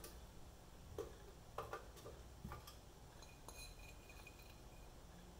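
Faint clicks and taps of hard-frozen french fries being set down in an air fryer basket, a few light knocks in the first two and a half seconds.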